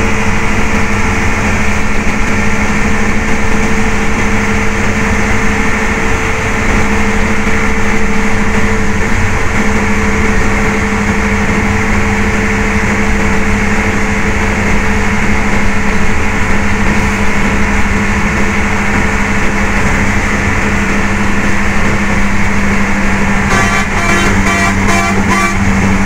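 Coach bus engine and road noise from inside the cab, running steadily as the bus drives along the highway. Near the end a horn sounds in a quick series of rapid pulses.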